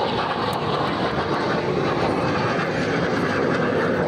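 Single turbojet of an A-4 Skyhawk attack jet flying a slow, low pass: a steady, even rush of jet noise.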